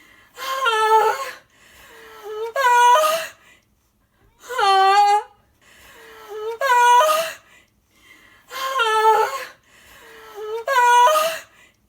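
A high-pitched voice wailing a drawn-out 'aah', the same short cry repeated six times at even intervals of about two seconds.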